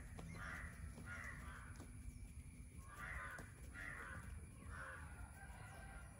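Harsh, caw-like bird calls in two runs of three, the second run starting about three seconds in.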